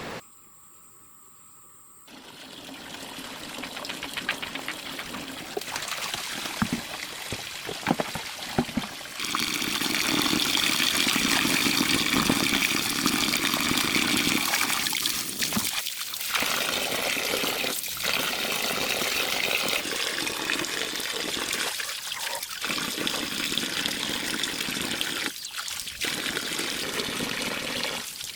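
Water running and pouring in a steady stream, louder from about a third of the way in and broken by a few brief gaps.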